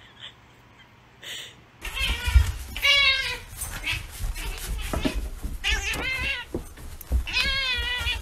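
Domestic cat meowing repeatedly, starting about two seconds in: several drawn-out meows with a wavering pitch, begging for food.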